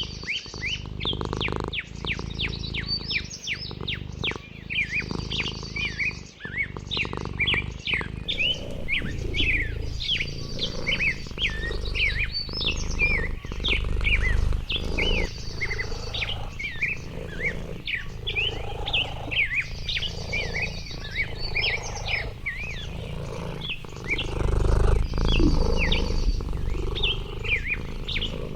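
A chorus of songbirds chirping and calling rapidly and continuously. Underneath is a low rumble, loudest near the end.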